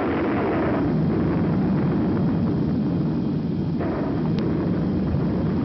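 Sound effect of a volcano erupting: a loud, dense, steady rumble.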